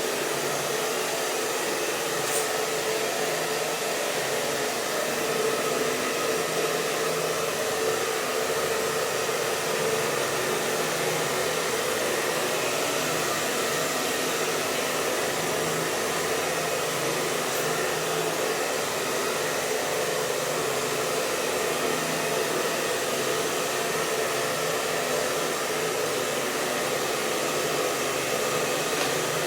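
Hair dryer running steadily on one setting: an even rush of air with a faint hum.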